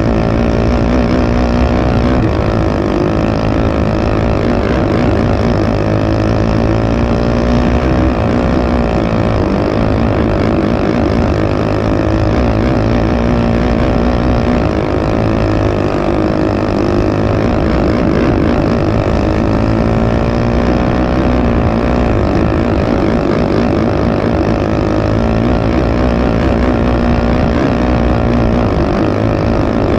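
Cage kart's racing engine running hard at race pace, heard from on board, its pitch rising and falling repeatedly as it speeds up and slows down around a dirt oval.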